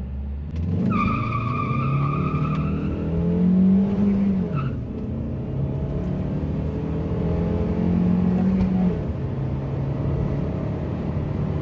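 Lada Granta's 87 hp 1.6-litre eight-valve four-cylinder accelerating hard from inside the cabin, revs climbing in each gear with two upshifts, one about four and a half seconds in and one about nine seconds in. A high whine sounds for about two seconds as the car pulls away.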